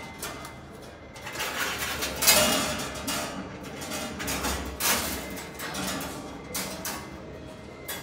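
Steel ceiling hanger wire being pulled and twisted by hand: irregular scraping and metallic clinks, loudest about two seconds in and again near five seconds.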